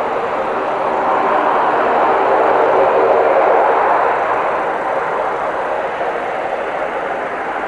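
Twin turboprop engines of an ATR 72-500 running as it taxis: a loud, steady engine and propeller noise that swells about three seconds in, then slowly eases.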